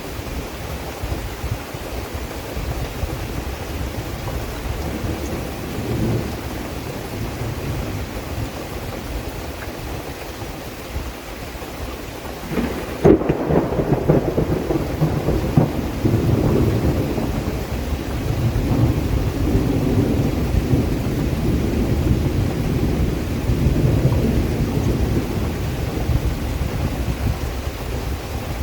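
Steady rain falling, with a sudden thunderclap a little before halfway that rolls on as a low rumble to the end.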